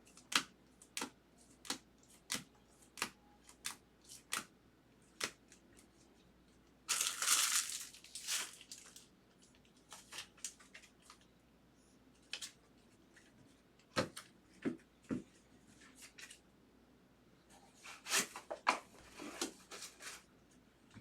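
Trading cards being flicked through one at a time, a sharp click about every two-thirds of a second. About seven seconds in, a card pack wrapper is torn open, followed by a few more card clicks and wrapper crinkling near the end.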